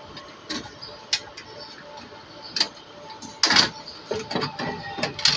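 Scattered light clicks and knocks, the loudest a short clatter about three and a half seconds in, over a faint steady hum.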